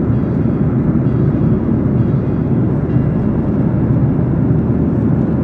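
Steady low rumble of an airliner cabin in cruise flight: engine and airflow noise heard through the fuselage.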